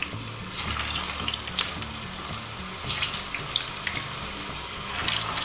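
Cabbage Manchurian balls deep-frying in hot oil: a steady sizzling hiss with sharp crackles scattered through it, growing as a second ball goes into the oil.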